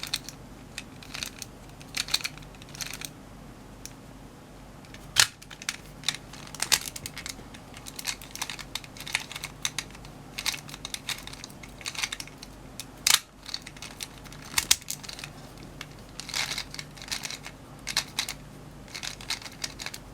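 Gear Shift twisty puzzle being turned and handled: irregular clicks and clacks of its plastic parts, with a few sharper louder clacks now and then.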